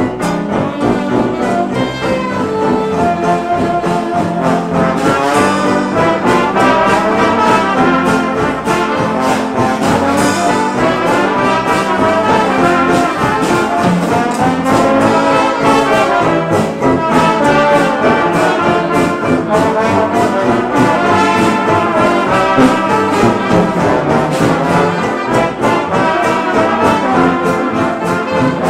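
Traditional jazz band playing, with brass to the fore: trombone and trumpet lines over a sousaphone bass and drums.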